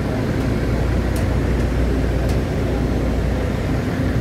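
Taiwan Railways DR3000 diesel multiple unit's diesel engines running as the train pulls out and rolls slowly past, a steady low drone with a few sharp clicks.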